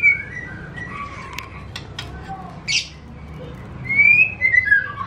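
White-rumped shama (murai batu) singing: loud, clear whistled phrases that slide up and down, with a few short sharp ticks and a brief rasping note in the middle.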